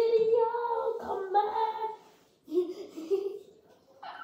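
A high voice singing a short wordless tune: one long phrase, a brief pause about two seconds in, then a shorter, lower phrase.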